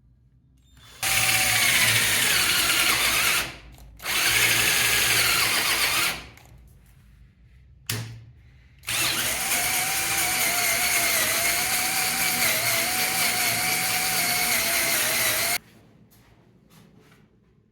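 Power drill boring a 37 mm candle hole into hardwood, run in three bursts: two short ones of about two seconds and a longer one of about seven seconds.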